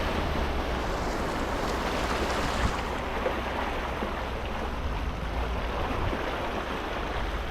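Floodwater rushing and splashing around a vehicle as it drives through a flooded road, over a steady low rumble.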